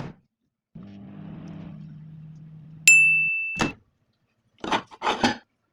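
Microwave oven running with a steady low hum, then a single ding about three seconds in as the cooking cycle ends. A click and a few short knocks follow near the end.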